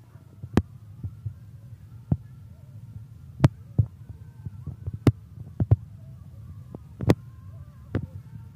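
Sharp knocks of a tool striking bamboo, about nine at uneven intervals, the loudest about a third of the way in and again near the end, over a steady low hum.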